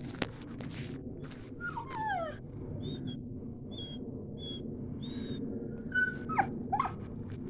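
A Malinois dog whining and whimpering while gripping a hanging rope toy: short falling whines about two seconds in, then two sharper, louder ones near the end, with a few short high peeps between them. A single sharp click just after the start.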